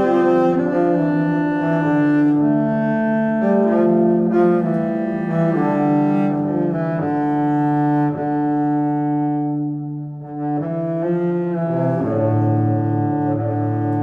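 Slow instrumental background music of sustained, overlapping low notes that change pitch every second or two, with a brief lull about ten seconds in.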